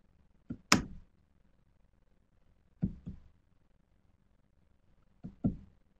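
Three double clicks about two and a half seconds apart, each a faint click followed quickly by a louder one, with quiet in between.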